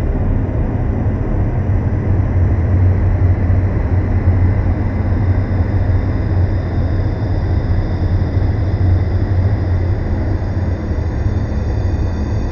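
Dark ambient drone music: a steady deep rumble with a rough, noisy texture above it and faint held high tones.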